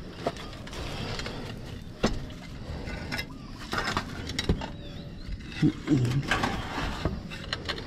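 Scattered light knocks and scrapes from handling on concrete roof tiles, with a brief low grunt-like voice sound about three-quarters of the way through.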